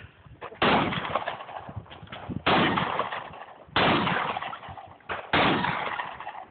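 Shotgun firing four shots about a second and a half apart, each sharp report trailing off over about a second.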